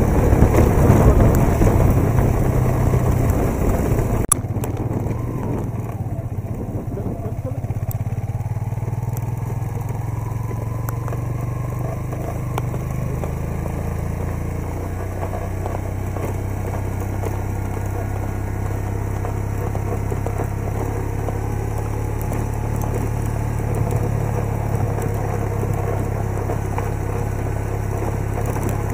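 A motor vehicle's engine running steadily at a low, even pitch. A sharp click comes about four seconds in, where the sound shifts.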